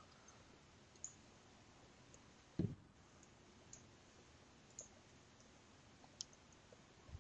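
Near silence with a faint hiss, broken by a handful of small, sharp clicks and one low thump about two and a half seconds in.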